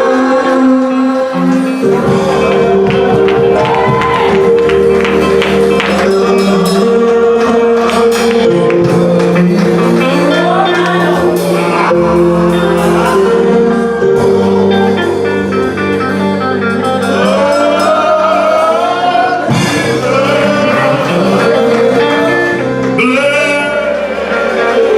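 Gospel singing with keyboard accompaniment: a voice sings a wavering melody over long held chords that change every few seconds.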